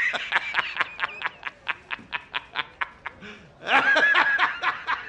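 A man laughing hard: a rapid string of high cackles, about six a second, breaking into a long high-pitched shriek of laughter about four seconds in, then cackling again.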